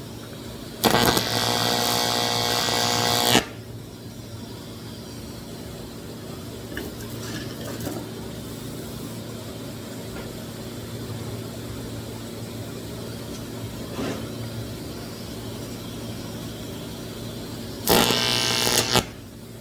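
AC TIG welding arc on aluminum, buzzing in two bursts: one of about two and a half seconds near the start and a shorter one of about a second near the end, each starting and stopping sharply. A steady low hum runs between them.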